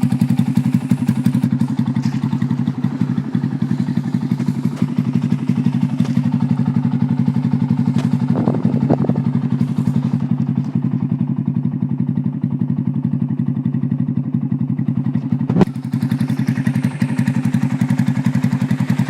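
Big-bore Yamaha Sirius motorcycle engine, bored out with a 62 mm piston, idling steadily with a rapid, even beat. A single knock sounds about three-quarters of the way through.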